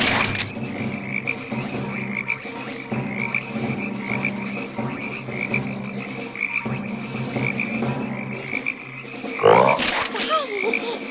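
Chorus of many frogs croaking continuously in repeating pulses. A brief sound with gliding pitch cuts in about nine and a half seconds in.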